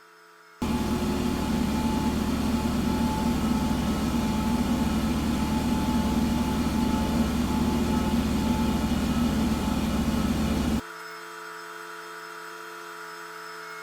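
Electric power tool switched on, running steadily for about ten seconds, then cut off abruptly.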